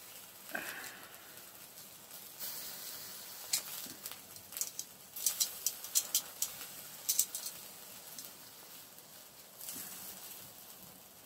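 Sharp, light clicks of metal tongs, knife and fork against a plate as a grilled sausage is lifted onto it and cut open; the clicks come in a flurry in the middle, over a faint hiss.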